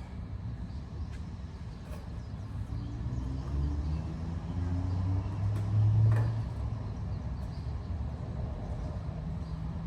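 Low engine rumble of a vehicle passing, swelling and rising slightly about four to six seconds in over a steady low background hum, with a few faint clicks.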